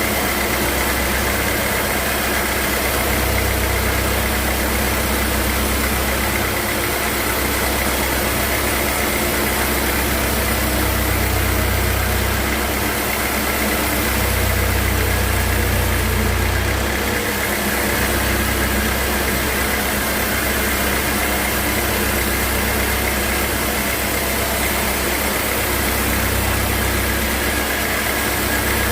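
Sawmill machinery running steadily with a low engine-like rumble that swells and eases every few seconds, over a constant high hum.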